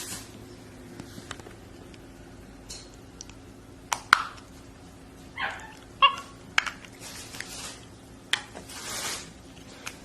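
Pet monkey giving a few short squeaky calls about halfway through, amid scattered sharp clicks and taps and brief rustling.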